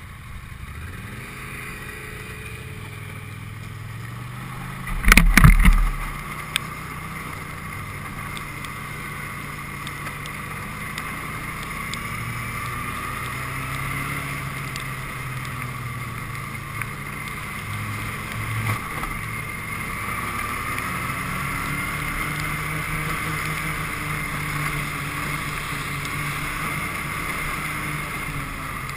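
Snowmobile engine running as the sled pulls away and rides along the trail, its pitch rising as it speeds up and then holding a steady cruising note, with some wind on the microphone. A loud thump comes about five seconds in.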